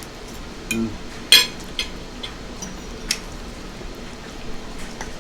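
Utensils clinking against dishes during a meal: a few sharp clinks, the loudest and ringing about a second and a half in, another about three seconds in.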